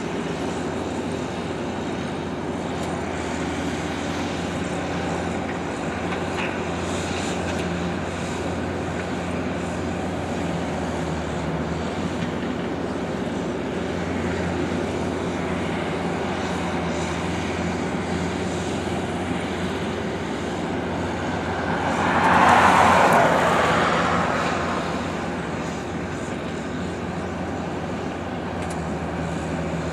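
Diesel engine of a John Deere tracked skid steer running steadily at work. About three-quarters of the way in, a louder rushing swell rises and fades over about two seconds.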